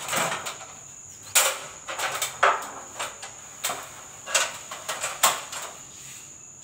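A metal filler scraper knocking and scraping against a hand-held filler board in about a dozen irregular strikes, with a steady high thin whine behind them.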